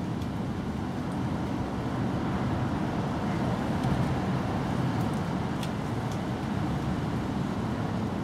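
Steady low rumbling background noise, with a few faint clicks.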